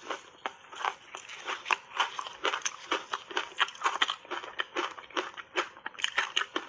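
Frozen matcha-powder reshaped ice being chewed with big bites: a rapid run of crisp, brittle crunches, about three or four a second.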